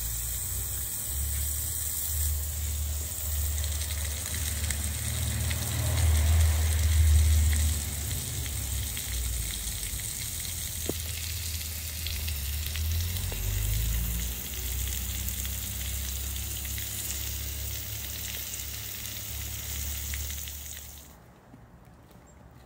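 Water from a garden hose spray nozzle hissing and spattering onto paving stones, over a low rumble that swells about six to eight seconds in. The spray cuts off suddenly near the end.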